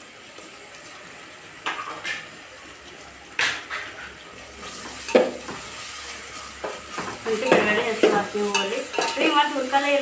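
Onion and spice masala with freshly added ginger-garlic paste sizzling in oil in a pan as it is stirred, the spoon knocking and scraping against the pan several times, more busily in the second half.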